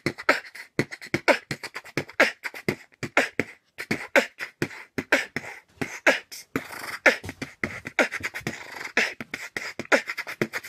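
A boy beatboxing with his hand cupped over his mouth: a quick, uneven run of sharp clicks and pops, several a second.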